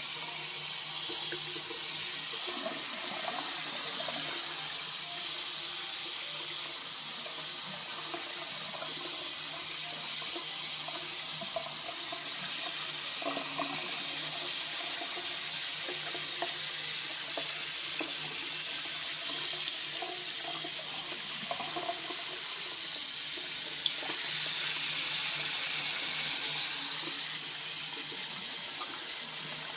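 Bathroom sink tap running in a steady stream, the water pouring onto a puppy's fur held in cupped hands. The flow sounds louder for a few seconds near the end.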